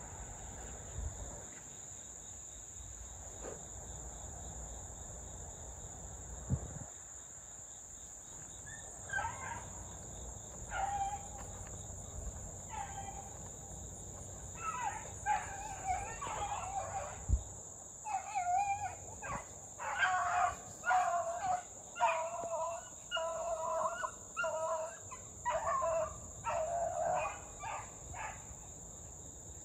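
Beagle baying on a rabbit's trail: repeated short pitched bawls that start about nine seconds in and come faster and closer together in the second half, over a steady high drone of crickets.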